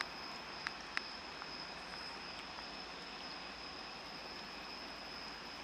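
Quiet outdoor background: a steady hiss with a faint, constant high-pitched tone, and two soft clicks about a second in.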